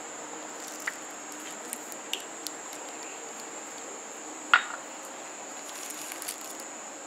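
Faint handling of a plastic bag being filled with custard mixture through a plastic funnel: soft squishes and a few light clicks, with one sharper tap about four and a half seconds in. A steady high-pitched tone sits in the background throughout.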